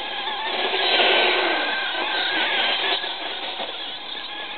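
Radio-controlled truck's motor revving as it spins and drifts through wet, heavy snow. It grows loudest about a second in, then eases off.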